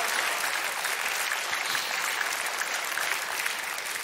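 Studio audience applauding steadily, thinning out near the end.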